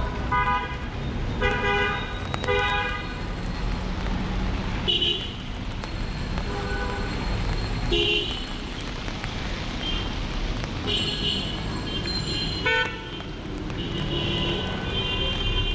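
Busy street traffic with vehicle horns honking again and again, short toots in quick clusters, over a steady engine and tyre rumble and the hiss of rain.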